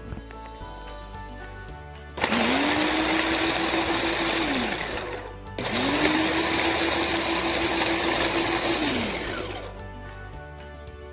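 Small electric grinder with a glass jar run in two bursts of a few seconds each, its motor pitch rising as it spins up, holding steady, then falling as it stops. It is blending roasted coconut and spices with water into a thick paste.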